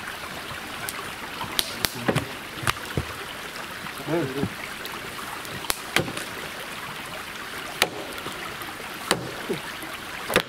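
Steady rushing background noise with about ten irregular sharp knocks and taps, and a brief faint voice about four seconds in.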